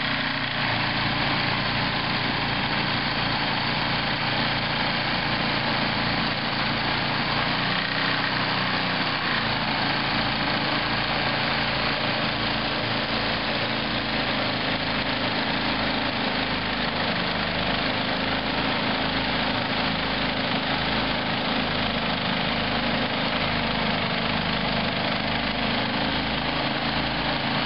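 Toro snow thrower engine running steadily.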